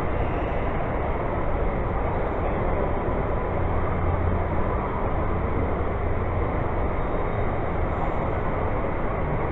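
Model freight train of boxcars and reefers rolling past on the layout, a steady rumble of wheels on rails that swells slightly in the middle.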